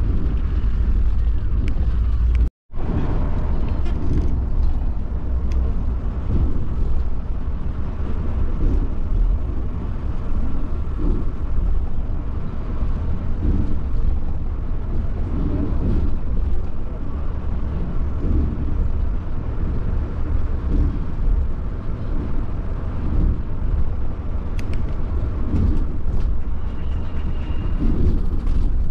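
Steady low rumble of a Volvo B11R multi-axle coach travelling on the road, with a brief cut in the sound about two and a half seconds in.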